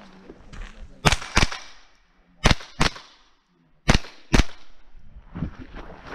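Ruger 10/22 .22 LR rifle firing six shots in three quick pairs, each pair about a third of a second apart and a second or so between pairs: double taps on targets.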